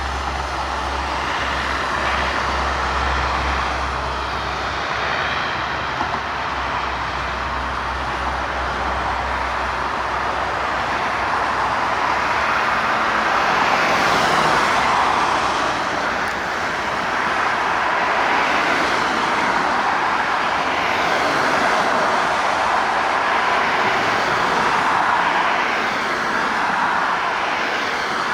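Four-engine turboprops of Lockheed C-130 Hercules transports at takeoff power, a loud, steady engine and propeller noise that swells twice.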